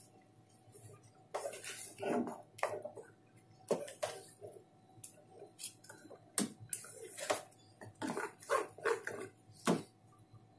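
Wooden spatula stirring thick carrot and cornflour pudding mixture in a nonstick pan, giving irregular soft scrapes, knocks and plops as the mixture thickens toward the boil.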